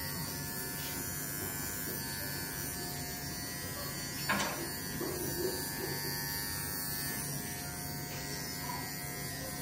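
Cordless dog clippers running steadily with a buzzing hum as they trim a Scottish terrier's throat and chest. A short, sharp sound comes about four seconds in.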